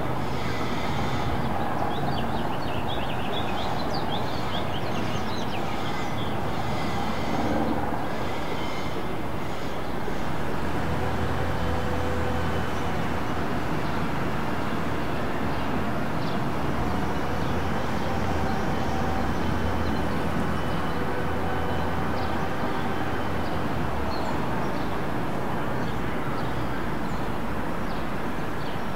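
Steady city street traffic ambience, with a low hum from a heavy vehicle that swells about ten seconds in and lasts over ten seconds, and a few high chirps in the first few seconds.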